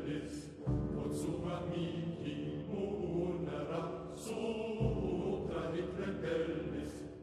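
Choral music: a choir singing sustained chant-like lines over a low instrumental backing, with heavy low notes coming in about a second in and again near five seconds.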